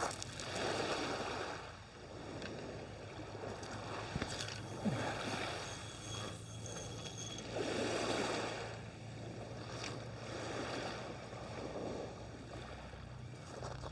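Small waves washing onto the beach, swelling and falling back every few seconds, with a faint steady low hum underneath.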